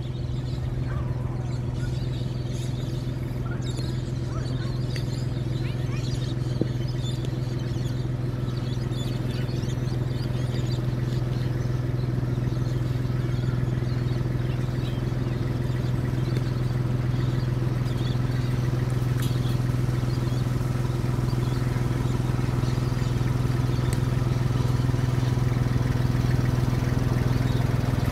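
Ride-on cricket pitch roller's engine running steadily as the roller drives down the pitch, growing gradually louder as it comes closer.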